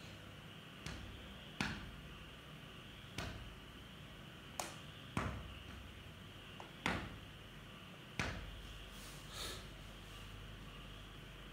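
A series of about eight sharp knocks or clicks at irregular intervals, each dying away quickly, over a faint steady hiss, with a softer rushing noise near the end.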